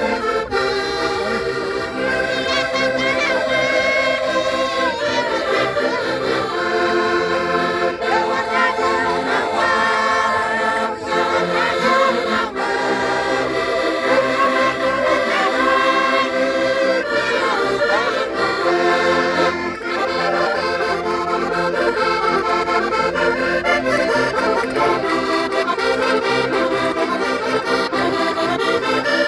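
Concertinas playing a traditional folk tune, with voices singing along.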